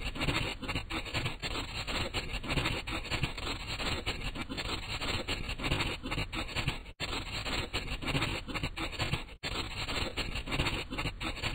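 Scratchy colouring scribble, like a marker or crayon rubbing back and forth on paper. It is steady and dense with many small scratches, with two short dropouts about seven and nine and a half seconds in.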